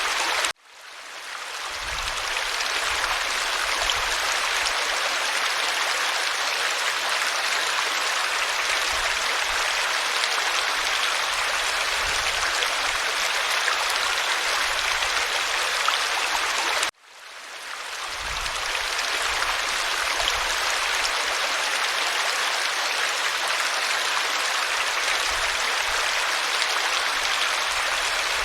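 Mountain river rushing steadily over rocks. The sound cuts out abruptly twice, about half a second in and again about 17 seconds in, and each time swells back over a second or two.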